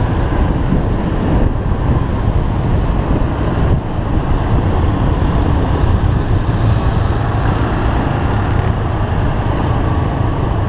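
Wind rush on the microphone of a moving motorcycle, over its engine and road noise. The sound is loud and steady, with a brief dip about four seconds in.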